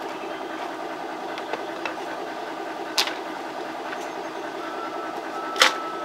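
A small motor running steadily, a hum with a hiss over it, with two sharp clicks, one about halfway through and one near the end.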